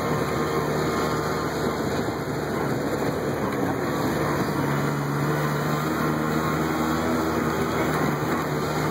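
Taxi's engine running steadily with road noise, heard from inside the cabin as it drives: an even hum with a low held tone.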